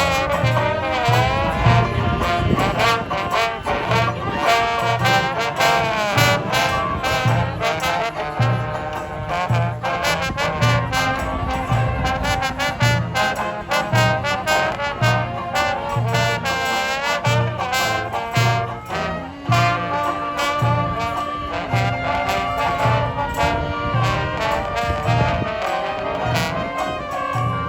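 Street brass band playing a tune: trombones and trumpets over drums, with a low bass note pulsing a little faster than once a second.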